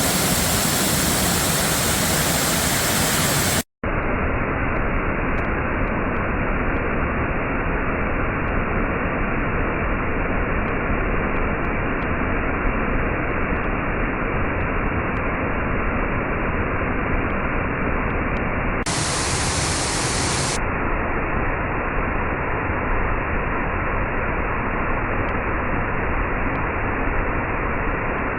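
Steady rushing of a large waterfall, Burgess Falls, heard as an even roar of falling water with a brief break about four seconds in.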